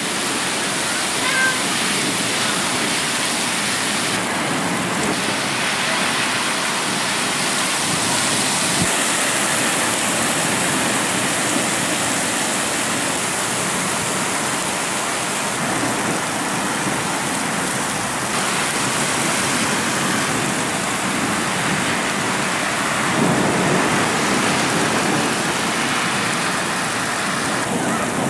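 Heavy rain pouring down onto a paved street, a dense steady hiss whose tone shifts abruptly several times.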